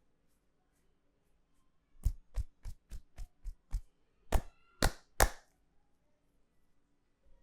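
Barber's hands striking in a percussive head massage: a quick run of about seven sharp chops or slaps, then three louder ones.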